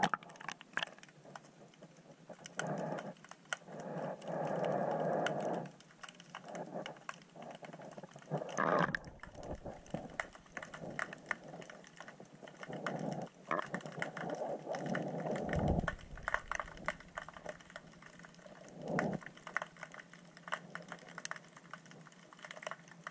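Underwater audio from a submerged action camera: a constant crackle of small clicks, with muffled swells of water sound every few seconds.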